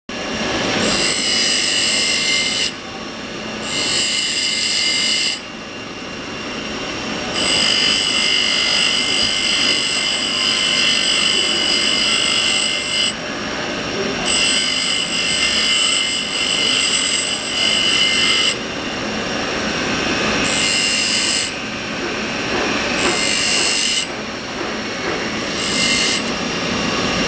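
High-speed steel drill bit being sharpened on a running grinding wheel. A high, ringing grind comes and goes in repeated passes lasting one to several seconds, with the wheel running between them.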